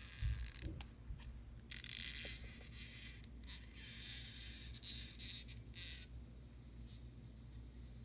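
Short scratchy rustling and scraping noises in a cluster from about two to six seconds in, from handling the phone and its small parts during the battery swap, over a low steady hum.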